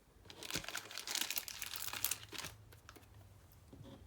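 Thin plastic packaging crinkling as it is handled and crumpled, dense crackling for about two seconds and then dying down to light handling noise.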